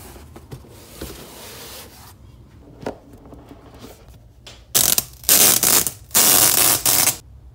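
Soft handling rustle and a single tap, then, starting about five seconds in, three loud bursts of crinkling as the clear plastic protective film is peeled off an iPad.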